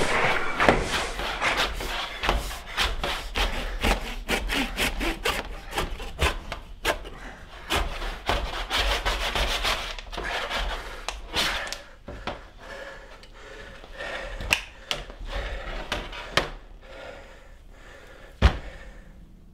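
Fast, dense scraping and rubbing strokes, like sawing or rasping, that thin out after about ten seconds to scattered clicks, with one sharp knock near the end.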